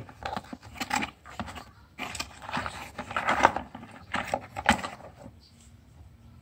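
Cardboard box with a plastic power adapter and cables in it being rummaged by hand: a run of rustles, knocks and scrapes that stops about five seconds in.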